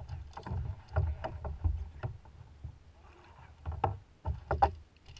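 Irregular knocks, clicks and low thumps from gear and hull on a fishing kayak, picked up through the kayak-mounted camera, while the angler reels in and plays a hooked fish.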